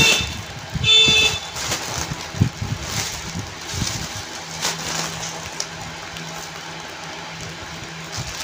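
Foil (Mylar) balloon being pressed and crumpled by hand to squeeze the air out, its foil crinkling and rustling. Two short high tones sound at the very start and again about a second later, and a faint low steady hum comes in about halfway through.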